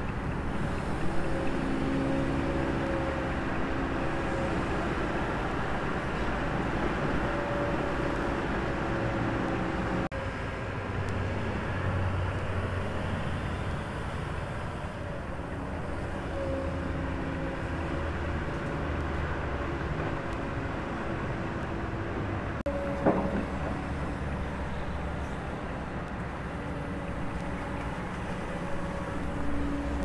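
Kobelco hydraulic excavator working: its diesel engine and hydraulics running under load while it digs and swings a bucket of soil, the engine note swelling and easing as the arm moves. One sharp knock about three-quarters of the way through.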